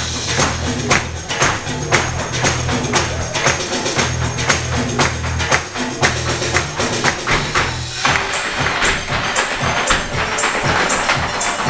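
Lively Irish dance music with rapid, sharp clicks of hard-shoe steps striking the stage. About eight seconds in, the low backing notes stop and the clicking footwork carries on.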